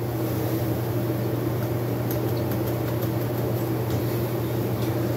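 A steady low motor hum with a few faint light clicks.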